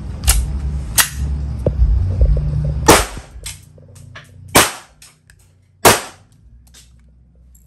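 Sand-coloured Ceonic SIG Sauer P320 blank-firing pistol shooting three V Sport blank cartridges a second or two apart, starting about three seconds in. Two lighter sharp cracks and a low rumble come before the first shot.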